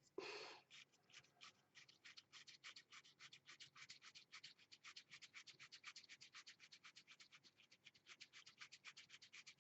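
Commodore MPS 801 ribbon cartridge being wound by hand, its winding mechanism giving a faint, fast run of even clicks, about seven a second, as the new ribbon feeds through. A brief scratchy rub comes at the very start.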